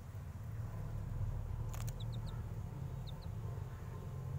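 Baby chick cheeping: three short high peeps about two seconds in and two more a second later. Under them runs a steady low rumble, with one sharp click just before the first peeps.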